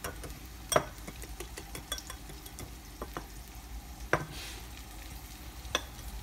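Wire whisk beating eggs in a small glass bowl, its wires tapping and clicking irregularly against the glass, with a few sharper knocks. Onion frying in oil in a pan gives a steady sizzle underneath.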